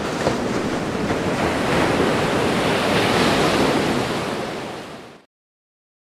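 A rushing, surf-like noise that swells to its loudest about three seconds in, then fades out to silence a little after five seconds.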